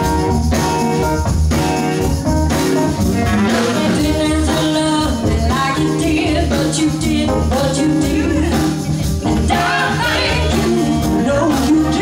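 Live soul band playing: bass, drums, hand percussion, electric guitar and keyboards, with female voices singing from a few seconds in.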